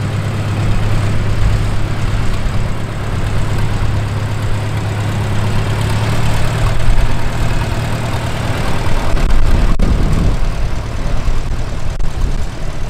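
A Farmall B's four-cylinder engine running at a steady slow pace as the tractor drives past. Its low drone fades about eight seconds in, with a single sharp click near the end.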